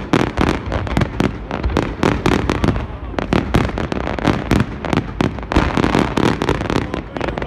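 Fireworks display at full tilt: a dense, unbroken barrage of aerial shell bursts, several bangs a second overlapping one another.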